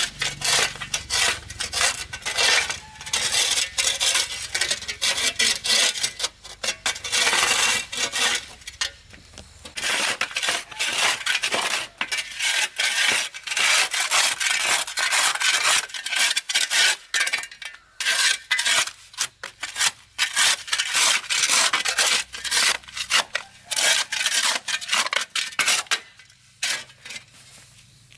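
Rapid, repeated rough scraping or rubbing strokes on a hard surface, thinning out shortly before the end.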